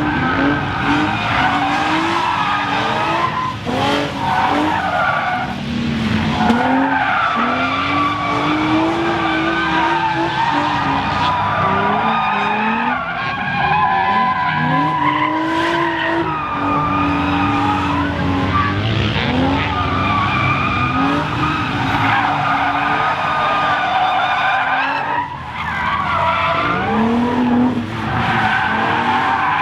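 Infiniti G35's V6 engine revving up and down over and over while its rear tires squeal in a slide, as the car is driven on its freshly welded, locked rear differential.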